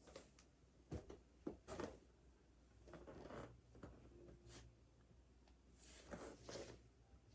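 Faint swishes and rustles of clothing against a mat, with a few soft knocks, from a person bowing down and rising again in full prostrations.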